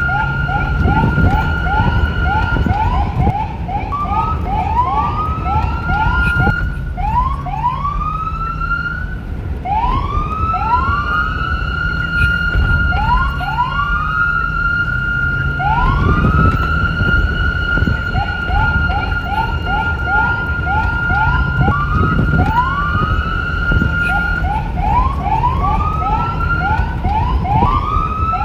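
Police car electronic siren switching between a fast yelp of short rising chirps and slower rising sweeps that climb and hold a steady high tone, cycling back and forth. A low rumble runs beneath it.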